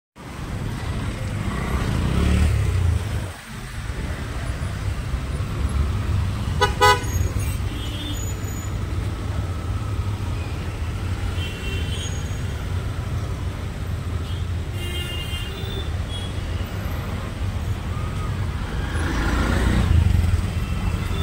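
Busy street traffic: auto-rickshaw and car engines running with a steady low rumble, and vehicle horns tooting. The loudest is a short toot about seven seconds in, with fainter toots a few times later.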